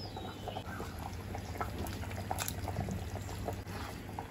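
Fish curry simmering in a clay pot, with small bubbling and splashing sounds as pieces of murrel fish are slipped in one by one, over a steady low hum.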